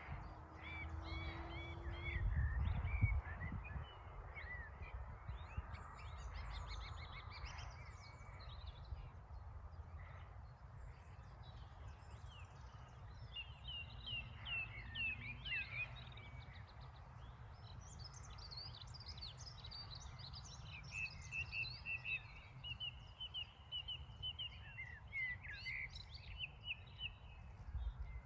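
Wild songbirds singing and calling, with quick chirps and trills that grow busier in the second half, over a steady low rumble.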